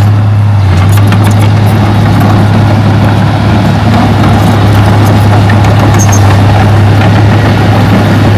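Diesel engine of heavy earthmoving machinery running steadily at constant speed, with a strong even low hum.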